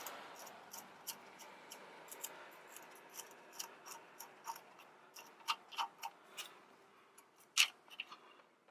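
Light, uneven clicks and ticks, a few a second, from hand-tool work on the power steering line fittings, with a faint hiss that dies away early.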